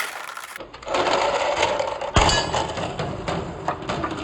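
Marbles rolling and clattering along a handmade marble run track, with a rapid run of clicks and one sharp knock about two seconds in.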